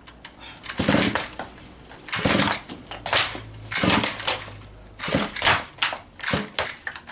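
Recoil pull-starter of a 1/5-scale RC car's small petrol engine yanked about six times in quick succession, each pull a short burst of noise about half a second long, with the engine not catching.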